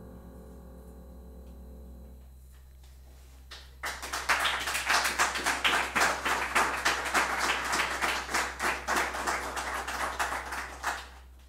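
Final sustained notes of the music fading out, then a small audience applauding from about four seconds in, the clapping dying away near the end.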